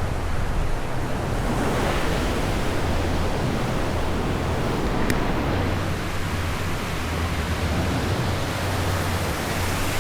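Ocean surf breaking and washing on a sandy beach, a steady rush of waves with wind buffeting the microphone.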